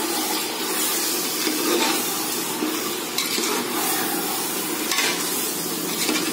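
Chicken pieces in biryani masala sizzling in hot oil in a deep pot while a spatula stirs them. There is a steady frying hiss with a few soft scrapes of the spatula against the pot.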